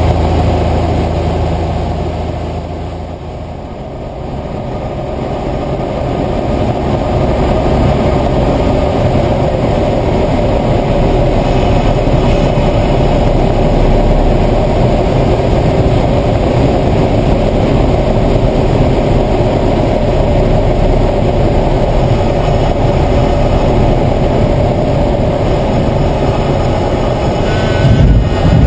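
Cessna 172's engine and propeller drone, heard from inside the cockpit on approach and landing, with wind noise. The sound dips a few seconds in, then holds steady. A brief louder jolt near the end comes as the wheels meet the grass strip.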